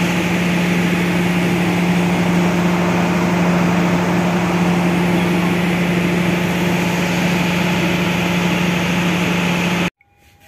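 Diesel generator set of an Indonesian KMP3 dining-power car running steadily with a low, even drone; it stops suddenly near the end.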